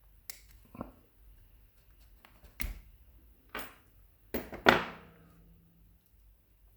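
Metal clicks and knocks of a DOM iX5 lock and tools being handled while it is taken apart: about six sharp separate strikes, the loudest about two-thirds of the way through, ringing briefly.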